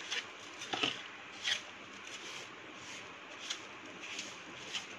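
Wooden spatula stirring a crumbly mixture of steamed moong dal, grated coconut and sugar in a stainless steel bowl. About six short, soft scraping strokes come at uneven intervals.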